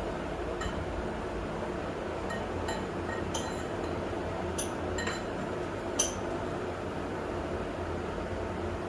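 A handful of short metallic clinks, scattered over several seconds with the loudest about six seconds in, as metal tools and hardware are handled around a newly bolted-on bench vise. A steady low hum runs underneath.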